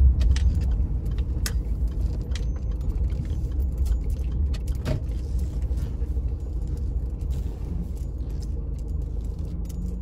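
Low, steady engine and road rumble heard inside a moving car's cabin, growing gradually quieter, with a few light clicks and rattles.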